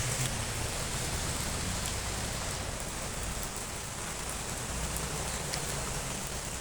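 Steady rain falling, an even hiss with scattered drops ticking on surfaces.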